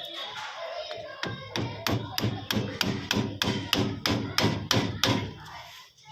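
Rapid, even hammer blows, about three or four a second, starting about a second in and stopping just before the end. They are struck in the course of a repair to an e-rickshaw's rattling body.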